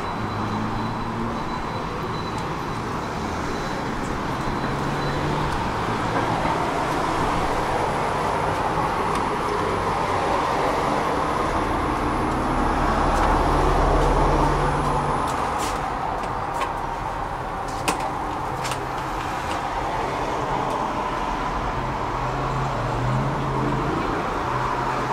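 Passenger elevator running: a steady mechanical noise with a low hum that swells around the middle, and a few sharp clicks about two-thirds of the way through.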